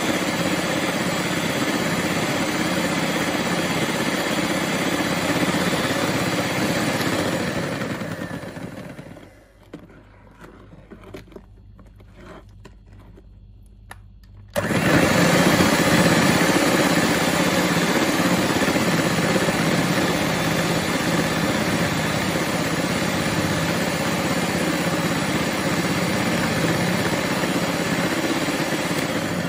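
Electric hand mixer running steadily, its wire beaters whisking a foamy egg mixture in a plastic bowl. The motor sound dies away about eight seconds in, leaving a quieter gap with a few light clicks. The mixer then comes back on suddenly and runs steadily again.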